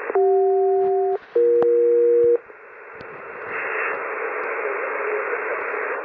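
SELCAL selective-calling signal received on upper sideband through an Icom IC-M802 HF receiver: two one-second pairs of steady tones sounding together, separated by a short break, each pair a different chord. After that comes the hiss and static of an otherwise quiet channel.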